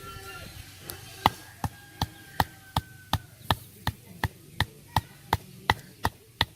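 Steady rhythmic chopping: about fifteen sharp strokes, close to three a second, starting about a second in.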